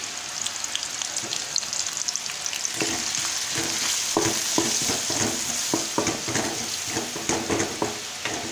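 Onions, green chillies and ground spices sizzling in hot oil in a pan. From about three seconds in, a spoon repeatedly scrapes and knocks against the pan as the mixture is stirred.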